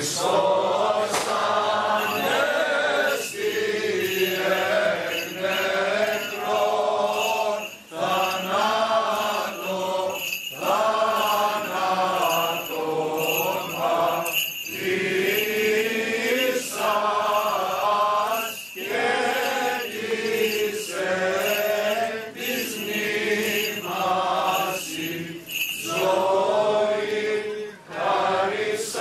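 Voices singing Greek Orthodox Byzantine chant of the Paschal hymns, in long held phrases with short pauses between them.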